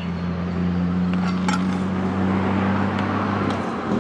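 An engine running steadily with a low, even hum, swelling as it begins and easing off just before the end, with a couple of faint clicks about a second and a half in.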